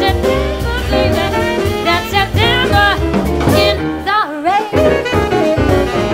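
Live jazz band playing a swing tune: upright bass, drums and piano under a lead melody line whose notes bend and slide in pitch.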